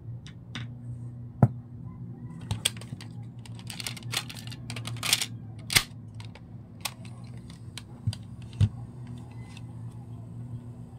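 Irregular clicks and knocks of hands handling a homemade transistor amplifier board, its alligator-clip leads and the buttons and case of a portable radio-cassette player. A low steady hum runs underneath.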